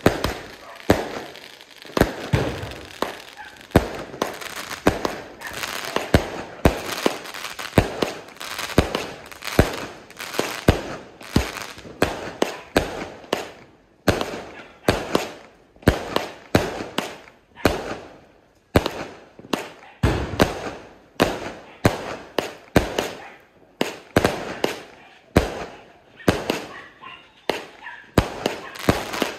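A 168-shot firework cake firing shot after shot: a steady run of sharp bangs, roughly one to two a second, each with a short fading tail.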